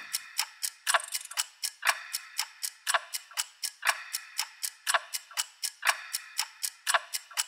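Clock ticking steadily: about four quick, sharp ticks a second, with a louder tick about once a second.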